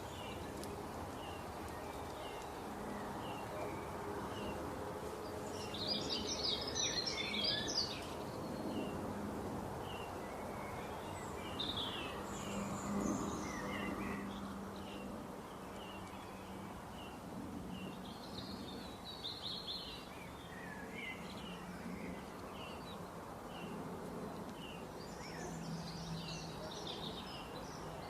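Outdoor birdsong: a run of short repeated chirps, with louder bursts of fuller song a few times, over a steady background haze and a low hum.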